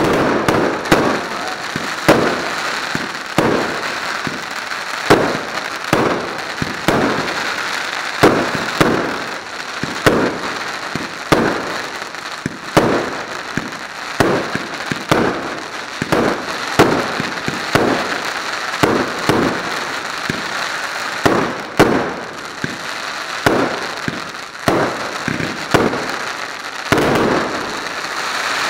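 Aerial fireworks bursting in a continuous barrage: sharp bangs, roughly one to two a second, over a steady hiss between them.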